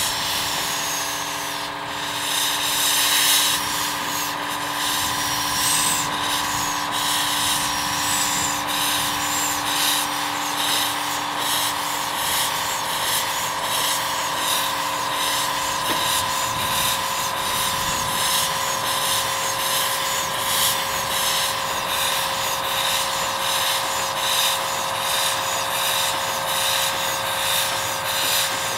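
Steam wrecking crane venting steam with a loud, steady hiss that carries a few steady tones, one of which stops about halfway through. Later an even pulsing of about two strokes a second runs through the hiss.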